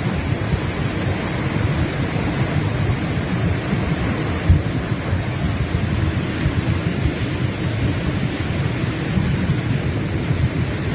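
Flooded, muddy mountain creek rushing past in full spate: a steady, heavy rush of water, deep and dense. A brief thump about four and a half seconds in.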